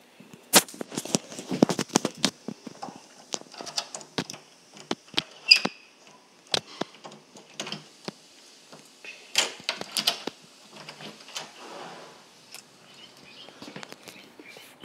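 Irregular clicks, knocks and rubbing close to the microphone, typical of a phone camera being handled and moved around.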